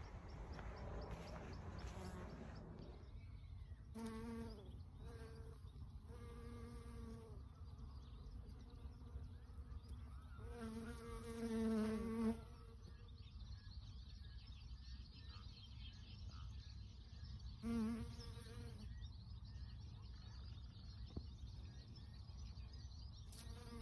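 Honeybees buzzing as they fly close past, in several separate passes of a steady hum. The loudest and longest pass comes about halfway through.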